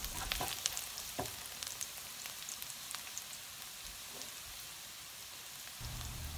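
Chopped garlic sizzling and crackling in hot oil in a nonstick wok, with a few scrapes of a spatula stirring it in the first second or so.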